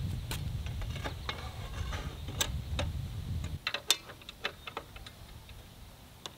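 Scattered light metallic clicks and taps as a circular saw blade is seated on a miter saw's arbor and the washer and arbor bolt are handled, with a quick cluster of clicks about four seconds in. A low rumble runs under the first half and cuts off abruptly.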